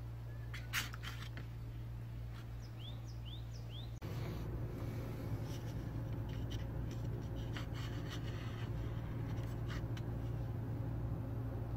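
A thin steel blade is worked in a jar of liquid, giving light clicks and scraping against the jar over a steady low hum. A bird chirps a few times in the first few seconds, and the hum gets louder about four seconds in.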